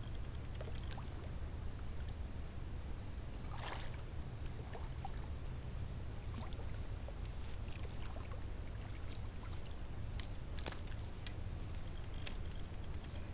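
Steady low rumble with scattered light ticks and a short splash-like rush about four seconds in, while a channel catfish is played on a spinning rod and reel at the water's edge.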